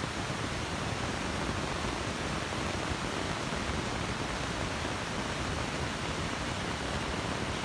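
Steady, even rushing noise of an underground subway station, the rumble of trains in the tunnels.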